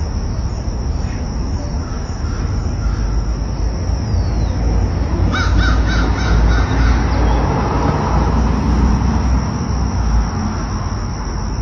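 Outdoor street ambience: a steady low rumble with a thin, steady high whine, and a quick run of harsh, rapidly repeated bird calls about five seconds in.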